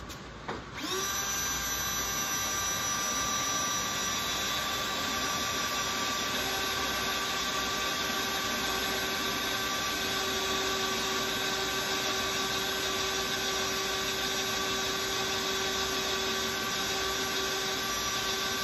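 Milwaukee cordless drill boring into a cast-iron brake rotor with a 1/2-inch Walker step drill bit; it is cutting. The drill starts about a second in and holds a steady whine under load.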